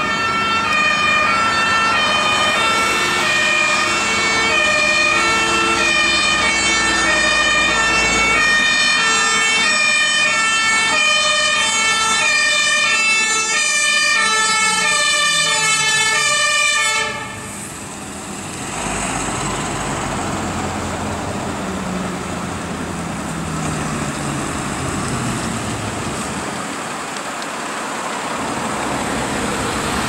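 German two-tone fire-engine sirens (Martinshorn), more than one sounding at once and overlapping, switch off abruptly a little over halfway through. The fire trucks' diesel engines are then heard passing close by, their pitch climbing as they pull away.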